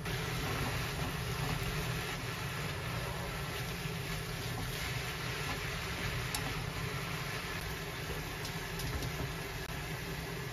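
Chopped perilla leaves sizzling as they are stir-fried in a pan and turned with wooden chopsticks, a steady hiss over a low hum, with a few faint clicks.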